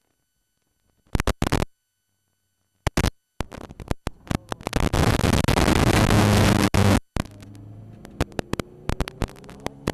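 Onboard audio from a Ginetta G40 race car cutting in and out: a second of dead silence, then short bursts of harsh distorted noise, loudest from about five to seven seconds in, with the engine note under it. Near the end the noise drops back and the engine note rises slowly as the car speeds up.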